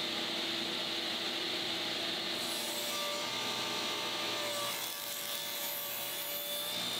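Table saw ripping a taper along a wooden table-leg blank that is clamped to a sled jig and fed past the blade. A steady cutting noise, with the hum under it shifting higher about halfway through.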